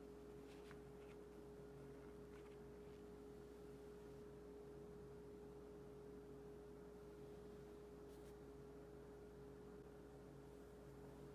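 Near silence: a faint steady hum holding one pitch, with a few faint ticks.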